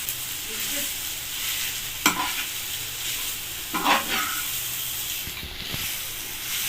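Ragi flour being stirred into onion and green chilli frying in oil in a pan on a low flame: a steady sizzle under the stirring, with two brief knocks about two and four seconds in.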